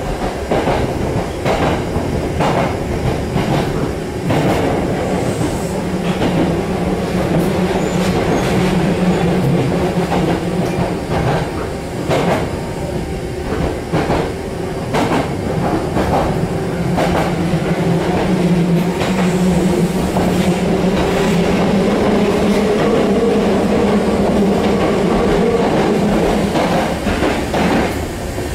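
Maroon ex-Hankyu electric train of the Nose Electric Railway running along the line, heard from inside the car. Its traction motors drone steadily, with a higher tone that rises slightly near the end, over repeated clicks of the wheels on rail joints.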